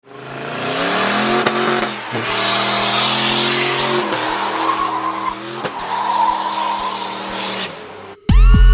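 Turbocharged Ford F-150 pickup's 5.4 V8 held at high revs through a burnout, its rear tyres spinning and squealing on concrete; the revs dip and climb again several times. Music cuts in abruptly near the end.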